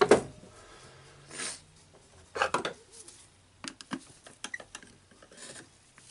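Handling noise of hand tools on a rotary hammer's housing: a loud knock right at the start, then scrapes and a run of small metallic clicks as a screwdriver and needle-nose pliers work at the field-winding screw.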